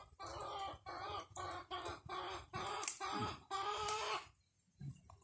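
Chicken clucking in a rapid run of about nine calls, two to three a second, stopping about four seconds in.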